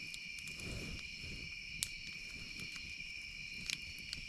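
Steady chorus of night insects, crickets, with campfire crackles popping now and then. About half a second in, a short low whoosh, likely the flare as powdered creamer catches in the fire.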